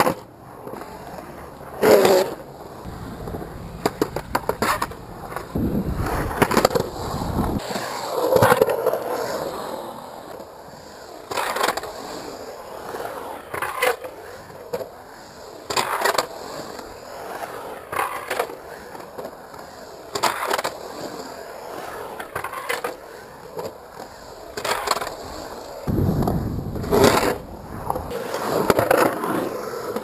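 Skateboard wheels rolling and carving on concrete bowl walls, broken every few seconds by sharp clacks and scrapes as the board's trucks hit the pool coping at the lip.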